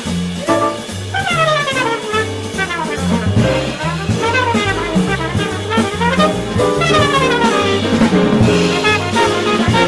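Live small-group jazz: a horn solo in fast falling runs over upright bass, piano and a drum kit with ride cymbal.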